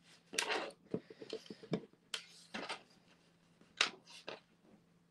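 Small plastic action-figure accessories handled and set down on a wooden tabletop: scattered light clicks and taps with brief rustling, a quick run of taps about a second in and a couple more near four seconds.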